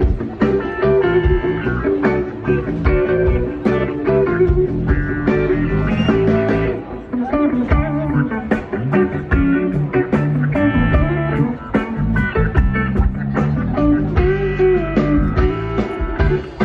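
Live band music played over a PA, with a guitar carrying the lead line over a moving bass part and a steady beat.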